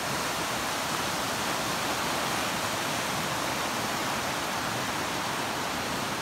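Fast-flowing river rushing over rocks in white-water rapids, a steady rush of water.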